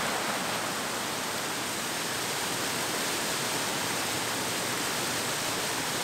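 Waterfall rushing steadily: a narrow chute of river water plunging into a deep plunge pool.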